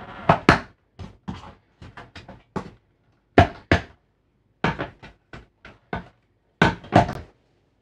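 Plastic TV speaker assembly being prised off its push-in bung mounts and handled on the back of a flat-screen TV: a series of sharp plastic clicks and knocks, the loudest a third of the way in and near the end.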